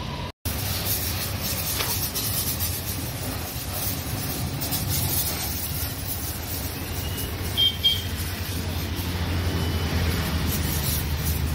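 Pressure washer running and spraying water onto a car: a steady motor hum under a hiss of spray. A brief high squeak stands out about eight seconds in.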